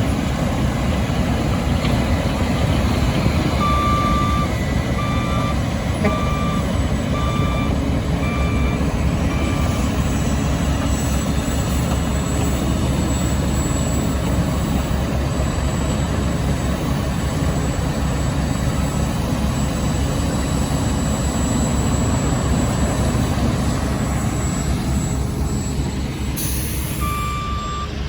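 Heavy diesel road-construction machinery running steadily during asphalt milling, with a truck's reversing beeper sounding a string of evenly spaced beeps about four seconds in and again near the end. A brief hiss of air comes just before the end.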